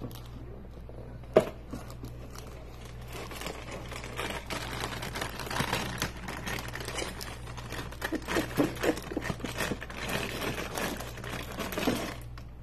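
Plastic inner bag of a cereal box crinkling and rustling, dense and irregular, starting about three seconds in, after one sharp click a little over a second in.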